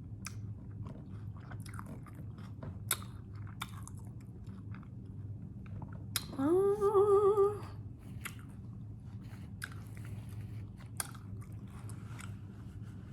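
Close-miked chewing and crunching of hard-shell tacos, with scattered sharp crunches and mouth clicks. Midway through comes a loud hummed 'mmm' of about a second, with a wavering pitch.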